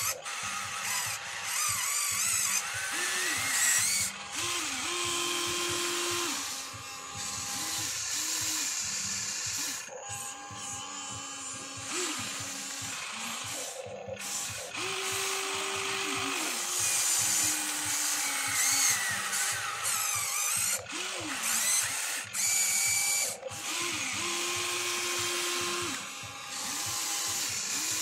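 Huina 1594 radio-controlled excavator's electric motors and gearboxes whining in short runs, each one rising in pitch, holding, then falling away as the boom, bucket and turntable start and stop.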